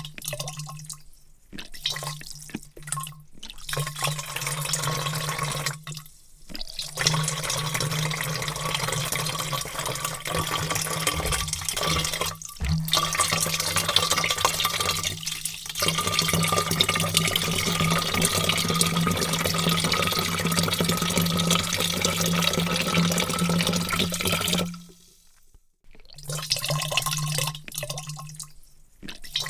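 Heavy stream of water pouring into a vat. The pour breaks off briefly several times and runs longest through the middle. It stops near the end, then starts again.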